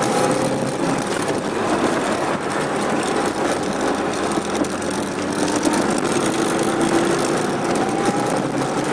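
Off-road SUV's engine and drivetrain running steadily while driving through snow, heard from inside the cabin, with a faint whine that slowly rises partway through.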